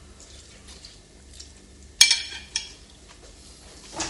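A fork clinking against a plate: one sharp clink about halfway, a lighter one just after, over quiet room tone.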